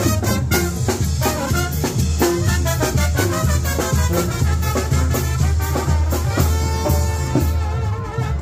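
Lively Latin band music with brass and drums playing a steady beat.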